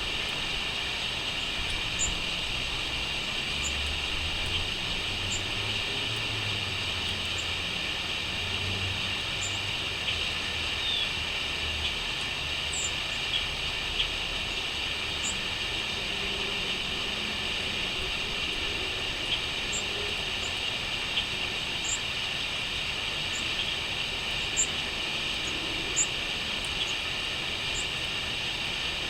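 Steady high-pitched chorus of crickets, with short high chirps every second or two. A low rumble lies under it in roughly the first twelve seconds.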